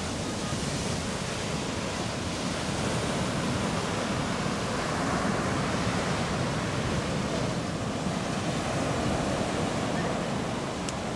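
Ocean surf breaking on a sandy beach: a steady rushing wash of waves, with wind buffeting the microphone.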